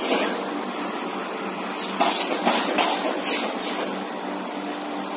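Automatic cardboard partition assembling machine running, with a steady hum and a series of short hissing bursts in quick succession about two seconds in.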